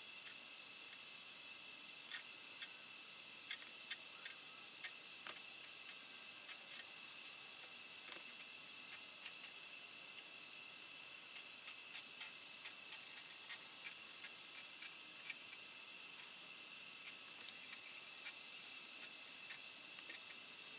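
Faint steady hiss of room tone with a thin high whine, broken by irregular light ticks and clicks, about one or two a second.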